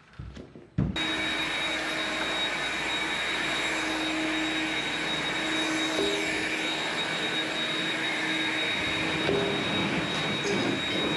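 A steady machine noise, like a motor running, that starts abruptly about a second in, with a constant high thin whine over it.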